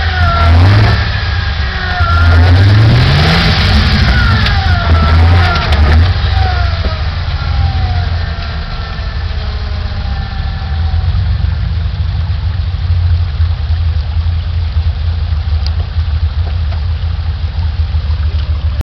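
Lifted Jeep Wrangler YJ's engine working at low speed as it crawls over creek-bed rocks. The revs rise in short pulls several times in the first few seconds, then settle to a steady low running.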